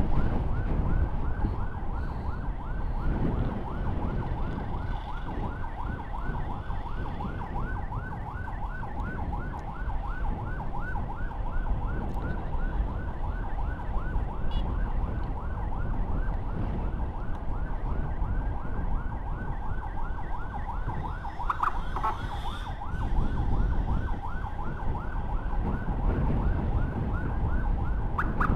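Electronic emergency siren sounding a rapid yelp, several rising-and-falling sweeps a second, over the low rumble of a moving motorcycle and road and wind noise.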